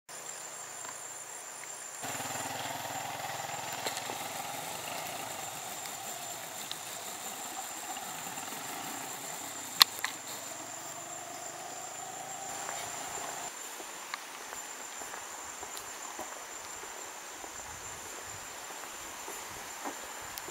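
Outdoor ambience with a steady, high-pitched insect drone. A lower rumble comes in suddenly about two seconds in and stops abruptly a little after halfway. A single sharp click sounds near the middle.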